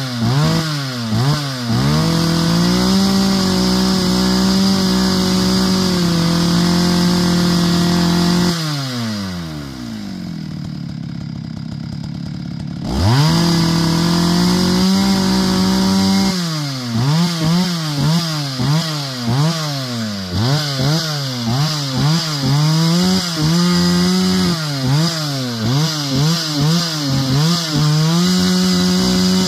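Two-stroke chainsaw cutting firewood. It revs in quick throttle blips, is held at full throttle for several seconds, and drops to idle about eight seconds in. Around thirteen seconds it revs back up and goes on with repeated revving and held cuts.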